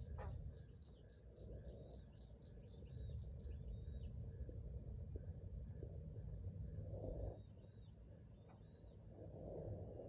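Frogs calling in a series of short repeated chirps, about three a second, which thin out about four seconds in, with a few more calls later, over a steady high-pitched trill.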